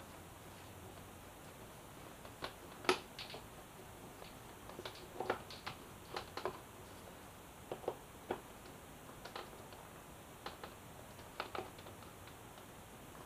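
Faint, irregular light clicks and taps of hand tools and bolts being worked against the lower header guard of a motorcycle, with one sharper click about three seconds in.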